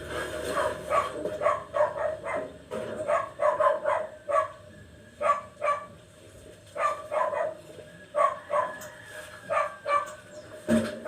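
A dog barking repeatedly in short runs of sharp barks with brief pauses between them.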